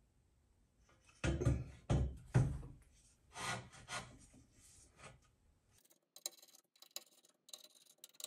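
Metal parts of an aluminium extrusion stand for a laser scan head being handled and fastened: a few loud clunks and scrapes about a second in, then a run of light clicks and ticks in the second half.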